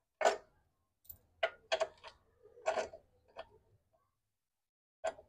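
Irregular clicks and knocks of a hand tool and bolts being worked at the crankcase side cover of a small generator engine during reassembly: a cluster of sharp taps over the first three seconds or so, then one more near the end.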